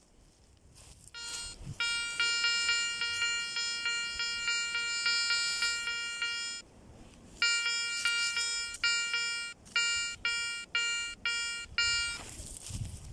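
Garrett ACE 400i metal detector sounding its target tone for a gold ring: a mid-pitched electronic beep repeated several times a second in two runs, the second breaking up into separate short beeps near the end.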